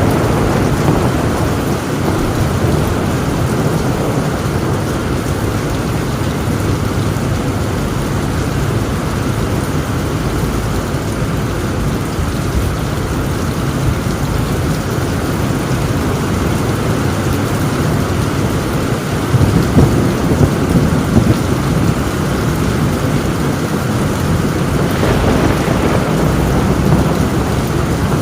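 Torrential rain drumming on a tin roof, with a constant low thunder rumble underneath. About two-thirds of the way in a few sharper thunder cracks stand out, and the thunder swells again near the end.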